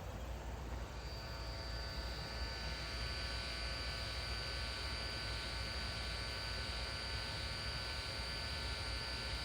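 Pedestrian-crossing announcement loudspeaker giving off a steady electrical buzz with a high whine, setting in about a second in. It is idle, with no announcement playing, and the uploader suspects the amplifier is turned up too high or the speaker wiring is faulty.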